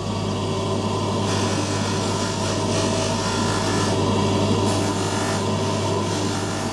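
Polishing motor spinning a bristle brush wheel, with a steady hum, while a silver-and-gold mokume gane ring is held against the wheel and scrubbed. The rasping scrub starts about a second in and comes and goes.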